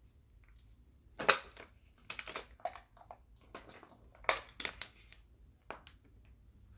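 Irregular knocks, clicks and scraping from things being handled at a desk, with two louder knocks about a second in and about four seconds in.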